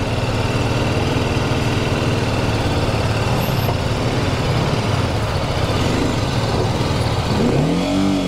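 BMW G 310 GS single-cylinder motorcycle engine running steadily as the bike rides along; near the end the engine note rises and then dips.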